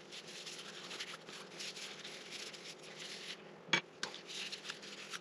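Cloth rag wiping and rubbing finish onto a small turned cherry wood scoop, with the scratchy rustle of gloved hands working it. One short, sharp click a little under four seconds in.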